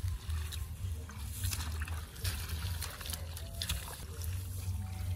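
Hands splashing and scooping through shallow muddy water in rice stubble while groping for fish, a string of small splats and trickles, over a steady low rumble.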